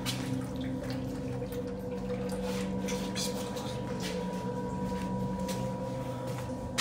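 Water running and trickling in a tiled toilet room, over a steady low hum, with a few soft knocks from footsteps.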